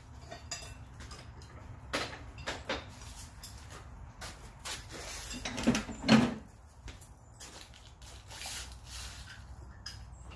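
Scattered metal clanks and knocks as a hot steel bar is set in a bench vise and worked with a twisting wrench, the loudest pair about six seconds in, over a steady low hum.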